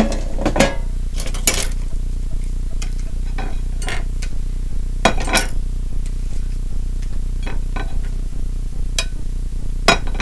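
Handling a plate of crisp fried tortilla chips: chips rustling and scraping against ceramic plates, with scattered clicks and clinks of plates and the air fryer basket on the counter. A sharp knock right at the start is the loudest sound.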